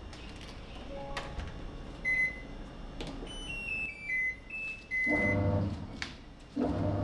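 Top-loading washing machine's control panel beeping as it is switched on and started: a single beep, then a short descending chime of electronic tones, then a long beep. A low hum from the machine comes in after the long beep and again near the end.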